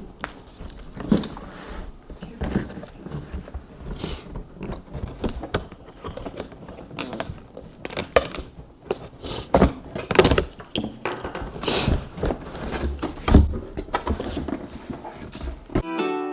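Cardboard box and packing materials being handled while a coffee maker and its parts are unpacked: irregular rustling, scraping and sharp knocks.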